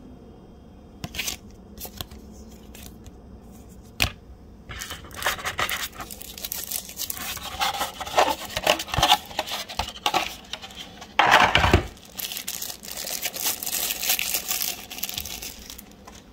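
Packaging being handled and unwrapped: a few sharp clicks, then about ten seconds of crinkling and tearing, loudest in a short burst just past the middle.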